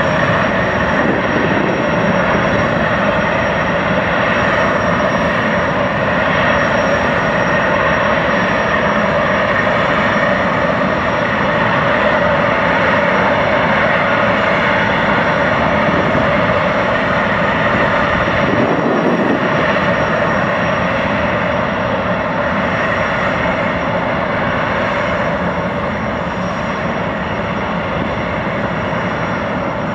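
Jetfoil hydrofoil ferry's gas turbines running with a steady whine as it moves slowly hull-borne, easing off a little near the end.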